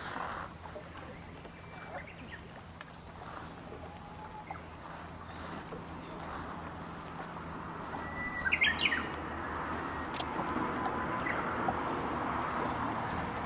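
A bird calls briefly about two-thirds of the way through, over a faint steady low hum and a soft rushing noise that grows louder in the last few seconds.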